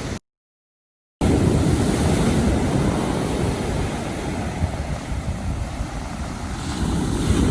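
Stormy sea surf with wind blowing across the microphone, a steady noisy rumble. The sound cuts out completely for about a second near the start.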